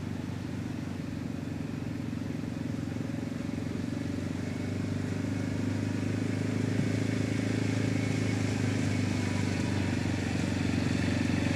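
Four-wheeler ATV engine running steadily as it drives slowly toward the listener, growing gradually louder.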